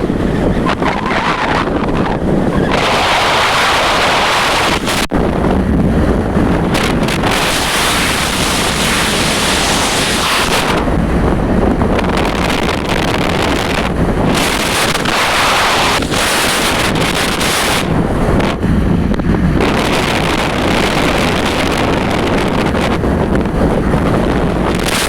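Wind buffeting the microphone: a loud rushing noise that swells and drops back every few seconds.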